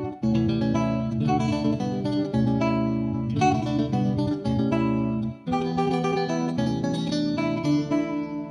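Background music with plucked and strummed guitar, the chords changing every second or so, with a brief break about five seconds in.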